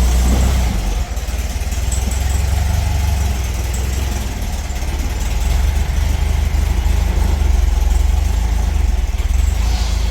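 Air-cooled flat-four engine of a 1967 VW Beetle running steadily at low revs.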